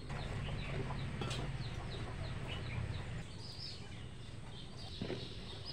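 Chickens clucking and small birds chirping around a village yard, with many short high chirps, over a low rumble that fades out about three seconds in.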